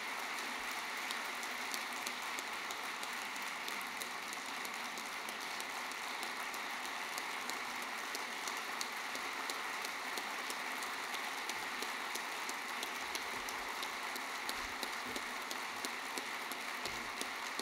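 A large audience applauding, a steady dense patter of many hands clapping with no letup.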